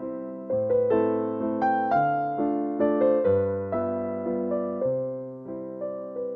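Background music: a piano tune, each note struck and then fading, over low bass notes.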